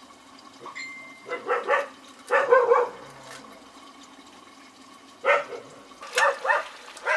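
A dog barking in short bouts: a few quick barks in the first three seconds, then a gap, then more barks from about five seconds in.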